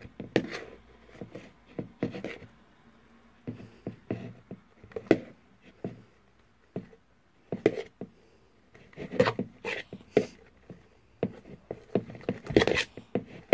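Homemade glue-and-contact-lens-solution slime being mixed and worked in a bowl, giving a run of short, irregular clicks and smacks.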